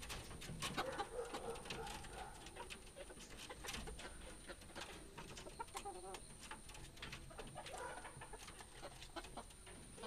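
Chickens clucking softly in low calls, with scattered sharp clicks.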